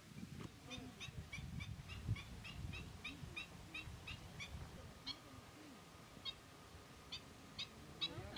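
A bird calling repeatedly with short, clipped notes: a quick series of about two a second from about half a second in, thinning out to scattered calls in the second half.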